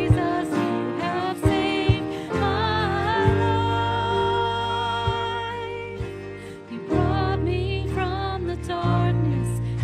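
A worship band playing a song: a singer holding long, wavering notes over steady bass and drum hits.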